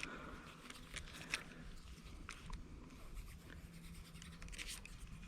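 Faint scratching with a few scattered small clicks, over a low steady hum.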